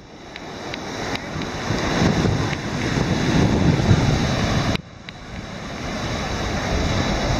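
Ocean surf washing in on a beach, with wind buffeting the microphone. The sound swells over several seconds, drops off suddenly about five seconds in, then builds again.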